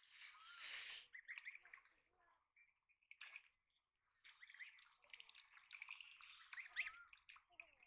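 Faint dripping and light splashing of water as a wet cast net is hauled in by hand from the water. It dies away for about a second and a half midway, then picks up again.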